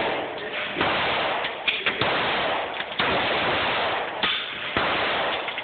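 Handgun shots fired in an indoor shooting range, a string of single shots roughly a second apart, each one echoing off the range walls.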